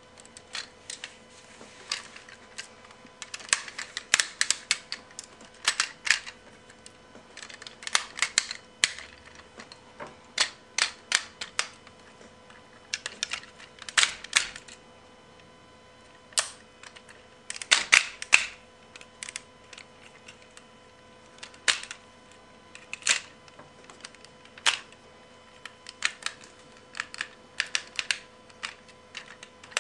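Hard plastic parts of a Sixshot Transformers toy clicking and clacking as it is transformed by hand into wolf mode: irregular sharp clicks, singly and in quick clusters, as joints snap and parts knock together.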